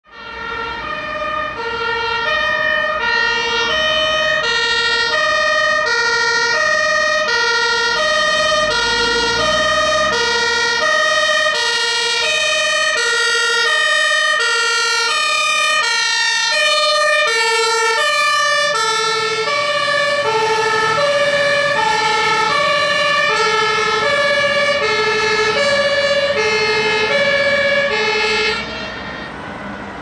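Two-tone Martinshorn sirens of German fire engines on an emergency run, steadily switching between a lower and a higher tone, each held about half a second, over a steady high tone. From about two-thirds of the way in a second siren overlaps, and the sirens cut off suddenly near the end.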